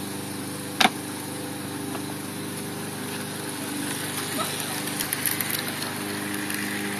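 A petrol lawn mower running steadily next door, with one sharp knock about a second in. From about four seconds in, light clicking from an O gauge model train running along the track joins it.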